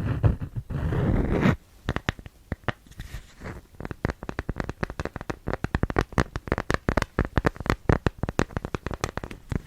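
About a second and a half of loud, dense scratchy rubbing, which stops suddenly. Rapid, irregular tapping follows, several sharp taps a second: an ASMR tapping trigger on wax cloth and a cork pad.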